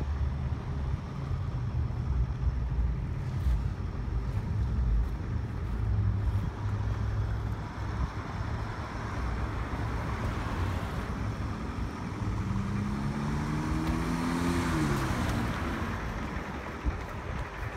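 Street traffic: cars driving past over a steady low rumble. Late on, one car's engine rises in pitch as it accelerates, then drops away quickly as it goes by.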